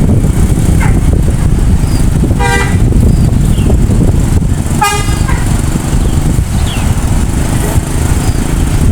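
Two short blasts of a bus air horn, about two and a half seconds apart, over a loud low rumble.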